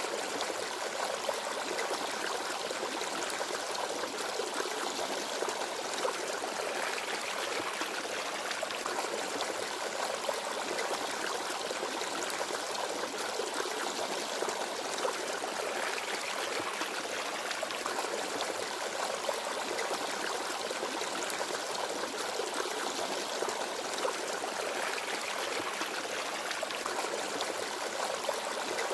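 Small forest stream babbling and trickling over rocks, a steady, even flow of water.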